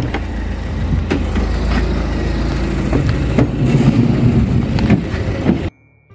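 Street noise with a taxi's engine idling, a strong low rumble under it, and several sharp clicks and knocks. The sound cuts off suddenly near the end, giving way to quiet piano music.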